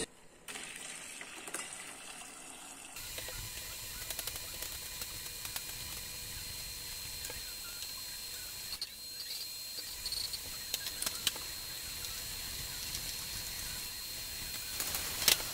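Steady hiss of a pot cooking on an induction hob, with a few faint high tones and scattered light clicks and knocks of utensils. The hiss gets louder about three seconds in.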